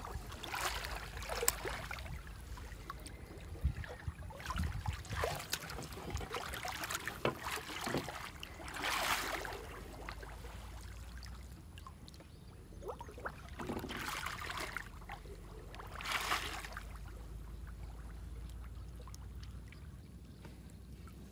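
Shallow lake water sloshing and splashing around a man's legs as he wades and hauls in a gill net, with water trickling off the net. Louder swishes come about nine and sixteen seconds in.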